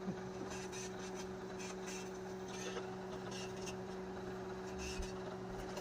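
1984 GE Spacemaker II microwave oven running: a steady hum, with a few faint ticks scattered through it.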